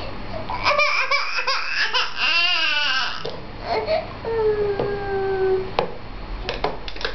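A toddler's voice fussing: a few whiny, wavering cries and babbles, ending in one long falling whine. A few sharp clicks follow near the end.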